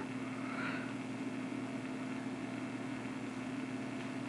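Steady background hum with a faint hiss: room tone, with no other sound standing out.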